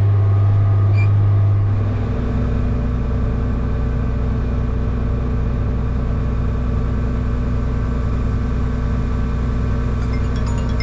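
Tractor engine pulling a grain cart, running with a steady low drone; about two seconds in its note drops lower and it settles into an even run.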